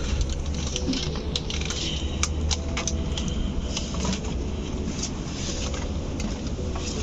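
Steady rushing water of the river and waterfall, a low even rumble with many irregular sharp ticks over it.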